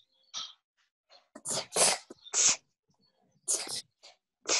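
Voices saying the letter sound /t/ as short, breathy, aspirated puffs, about six times in a row with pauses between, as each T is pointed to.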